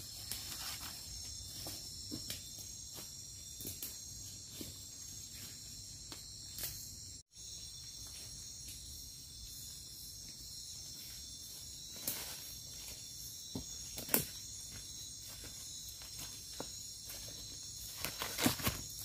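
Steady high-pitched chorus of night insects in tropical forest, with scattered footsteps crunching through leaf litter and undergrowth that grow louder near the end. The sound drops out completely for a moment about seven seconds in.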